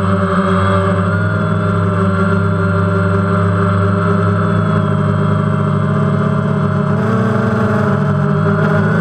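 DJI Phantom quadcopter's electric motors and propellers buzzing steadily, heard up close from the GoPro mounted on the drone, the pitch wavering slightly about seven seconds in.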